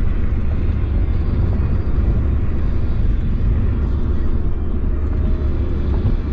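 Steady low traffic rumble, with a distant Federal Signal 2001 outdoor warning siren faintly wailing above it. The siren tone swells briefly and fades about two-thirds of the way through.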